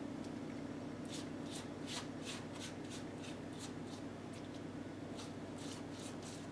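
Pastry brush swiping egg wash across a puff-pastry pie crust in quick, soft, repeated strokes, about three a second, over a steady low hum.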